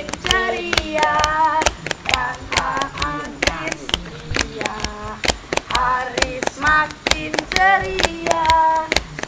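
A boy singing a song in Indonesian, over a fast, steady beat of sharp percussive hits.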